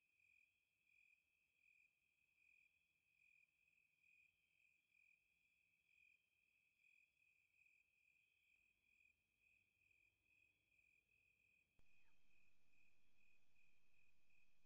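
Near silence with a faint cricket chirping regularly, about one and a half high chirps a second. A faint steady hiss comes in about twelve seconds in.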